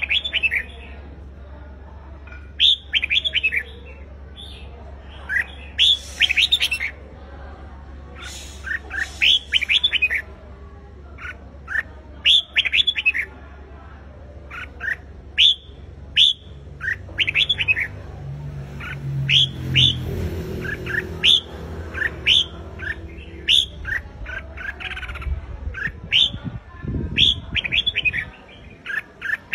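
Red-whiskered bulbul singing: short, bright whistled phrases of quick gliding notes, repeated every second or two.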